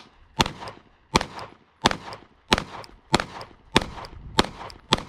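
Glock 48 9mm pistol firing a steady string of eight shots, about two-thirds of a second apart, each shot followed by a short echo.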